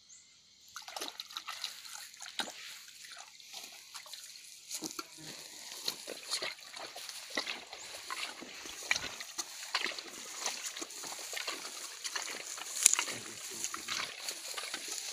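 Rubber boots tramping through tall, wet grass: an irregular swishing and splashing of steps that starts about a second in.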